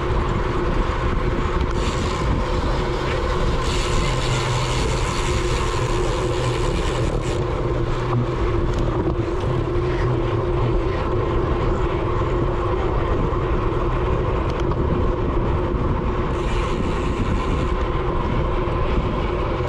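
Steady wind rush and riding noise on a GoPro mounted on a racing bicycle at speed, with brief stretches of brighter hiss.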